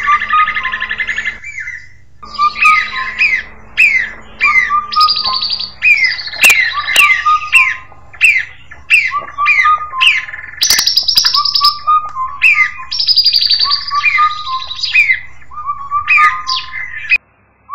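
Indian cuckoo calling over and over, its phrases repeating among the chirps and falling whistles of other birds. The birdsong breaks off abruptly near the end.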